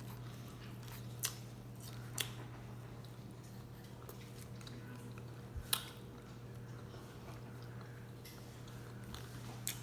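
Quiet chewing of pizza, with about four short sharp clicks scattered through it and a steady low hum underneath.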